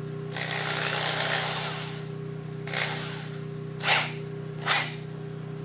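Corded electric drill working wood: one run of about two seconds, then three short trigger bursts.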